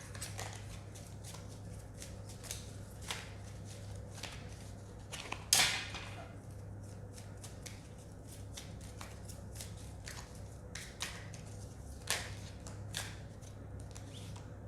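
Tarot cards being shuffled and handled: a long run of soft card rustles and clicks, the loudest about five and a half seconds in, over a steady low hum.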